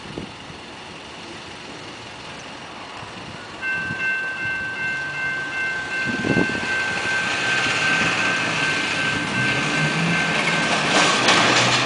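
Loaded coal hopper cars of a freight train rolling past on the rails, with a steady high metallic squeal from the wheels starting about four seconds in. Near the end a truck's engine passes close by.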